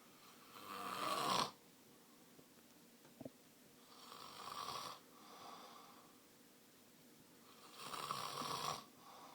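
A man snoring in his sleep: three rasping snoring breaths about four seconds apart, each cutting off sharply, the first the loudest, with a softer breath out after the second. A brief click falls between the first two.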